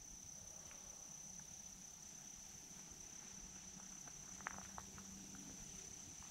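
Steady high-pitched trill of insects in the woods, faint. A few faint ticks about two-thirds of the way through.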